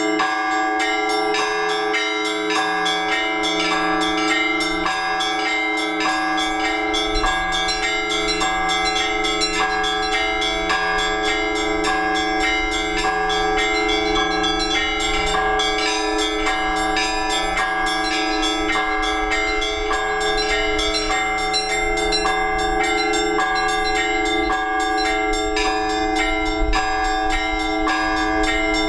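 Several Orthodox church bells rung together in a continuous rhythmic peal: quick repeated strikes on the smaller bells over the long steady ring of the larger ones.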